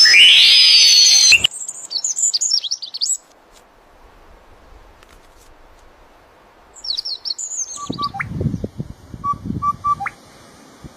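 A loud rising whistle-like sweep that cuts off suddenly about a second and a half in, then two bursts of high, quick bird chirps with a quiet gap between them. Near the end come low rustling thumps and a few short, steady tones.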